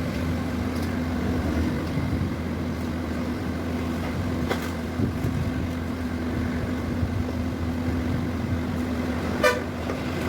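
Steady low mechanical hum of vehicles running nearby, with a single short vehicle horn toot near the end.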